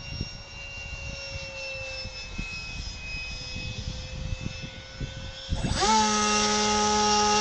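Electric motor of a radio-controlled model airplane whining faintly overhead, its pitch slowly falling. About five and a half seconds in, a much louder motor whine starts sharply and holds, creeping up in pitch. Wind buffets the microphone throughout.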